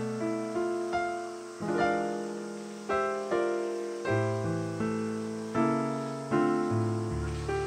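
Background piano music: a slow, gentle piece of chords and melody, each note struck and then fading.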